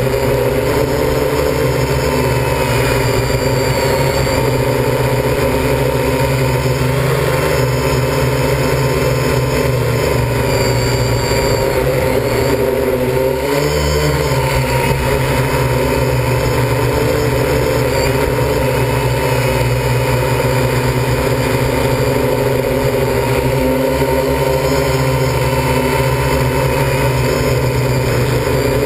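MikroKopter L4ME multirotor's electric motors and propellers humming steadily, heard from the GoPro mounted on it; about halfway through the pitch briefly rises and falls as it manoeuvres.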